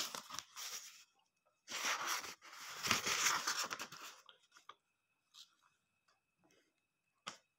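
Paper rustling as a book page is turned: a short rustle at the start, then a longer one lasting about two and a half seconds, followed by a small click near the end.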